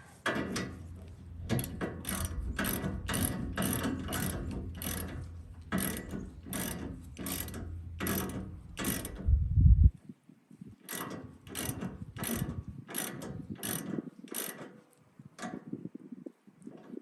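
Hand ratchet wrench clicking in runs of about two clicks a second as a bolt is turned. A low steady hum runs under the first half and ends in a loud thud about ten seconds in.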